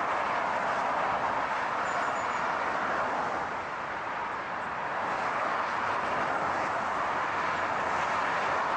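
Steady rushing noise of a car driving, dipping slightly about four seconds in.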